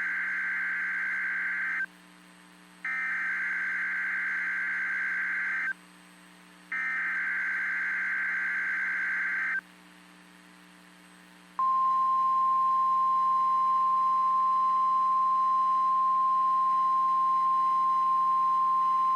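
NOAA Weather Radio alert: three bursts of the buzzy, warbling SAME digital header about a second apart, then, about 11 seconds in, the single steady high-pitched 1050 Hz Warning Alarm Tone begins and holds. Together they announce a new alert, here a severe thunderstorm watch.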